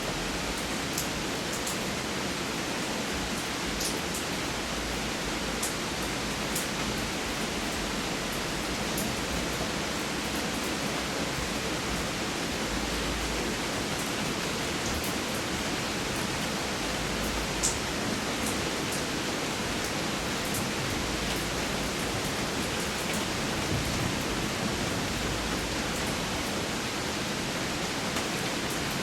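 Steady rain falling, an even dense hiss with scattered sharper drop ticks.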